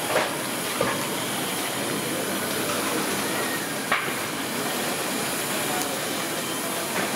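Chicken pakoda deep-frying in oil in a kadai: a steady sizzling hiss, with a few sharp clinks of a metal spider against the pots, one near the start, one just after and one about four seconds in.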